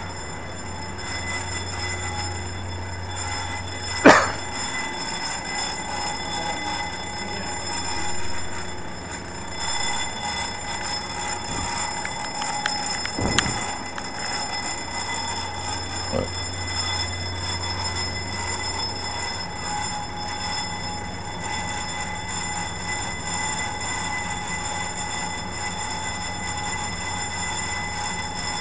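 Railway platform departure bell ringing continuously with a steady electric ring, sounded during the last thirty seconds before a train's scheduled departure as the warning that its doors are about to close. A sharp knock cuts through about four seconds in.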